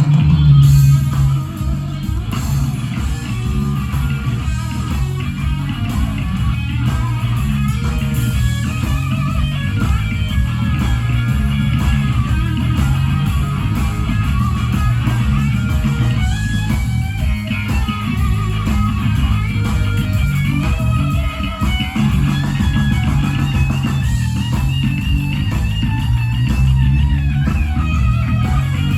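Blues-rock band playing live: electric guitar to the fore over bass guitar and drum kit, running steadily and loudly throughout.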